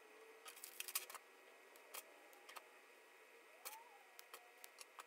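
Faint, scattered small clicks of Anderson Powerpole plastic connector housings and metal PCB contacts being handled and pressed together, with a quick cluster of clicks about a second in and a brief faint squeak a little past the middle.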